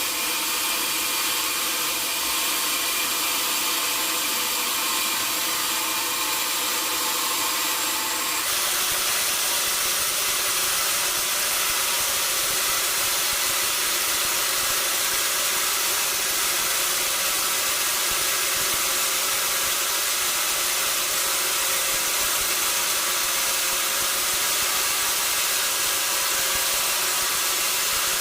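Sawmill saw running and cutting through a log: a steady hiss with a high whine over it. The tone shifts suddenly about eight seconds in, then holds steady.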